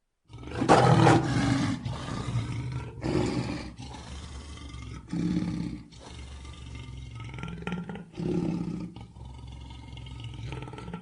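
Lion roaring: one long, loud roar starting just after the start, followed by four shorter, deep grunting roars every two to three seconds.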